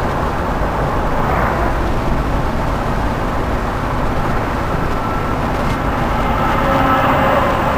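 Car driving on a city highway: steady engine and road noise heard from inside the cabin, swelling briefly about a second in as it passes a truck, and a little louder near the end.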